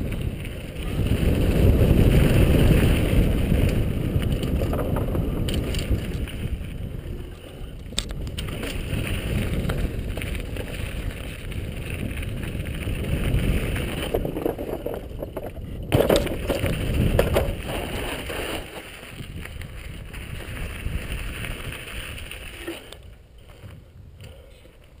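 Wind rushing over a helmet-mounted camera, mixed with knobby mountain bike tyres rolling over loose gravel on a downhill descent. The rush is loudest over the first few seconds, and there are a couple of sharp knocks, about eight and sixteen seconds in.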